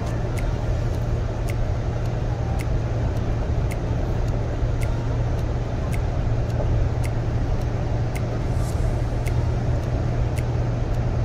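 Steady rumble of a car's engine and tyres, heard from inside the cabin while driving, with faint sharp ticks every second or so.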